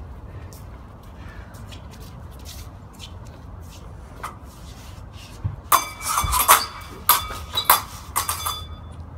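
Steel sword blades clashing in a rapid flurry of about a dozen strikes from about six seconds in to near the end, each hit leaving a short metallic ring.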